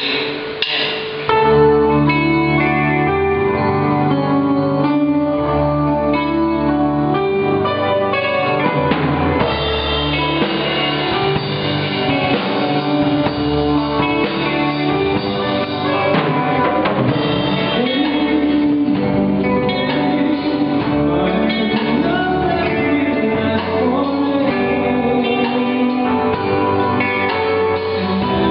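Live band playing a song with guitars and drum kit, the full band coming in loudly about a second and a half in.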